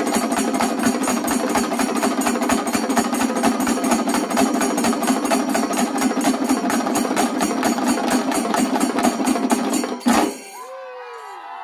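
Shinkarimelam ensemble of chenda drums and ilathalam cymbals beating a fast, dense rhythm that stops abruptly about ten seconds in, followed by whoops and cheering from the crowd.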